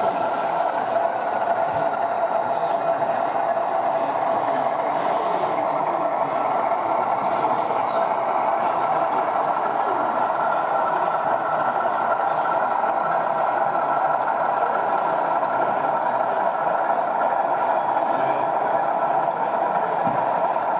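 Sound-fitted Gauge 3 model diesel locomotive's engine sound from its onboard speaker: a steady drone carrying two even tones.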